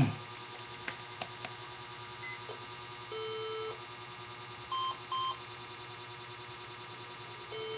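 Electronic beeps from bench test equipment: a lower beep lasting about half a second, two short higher beeps, then another lower beep near the end. A few light clicks come early on, over a steady low hum.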